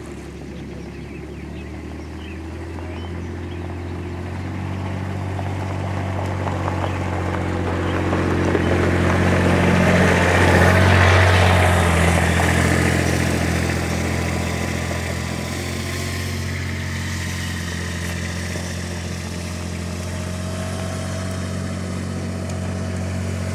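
A motor vehicle's engine running with a steady low hum. It grows louder to a peak about halfway through, then fades again.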